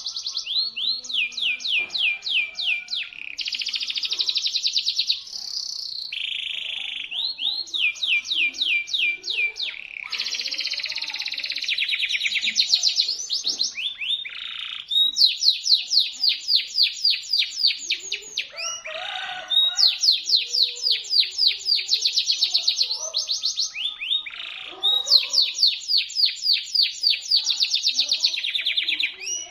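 Local canary singing sharp, shrill song, phrase after phrase of rapid repeated notes, about eight to ten a second, in high trills and rolls with only brief breaks between phrases.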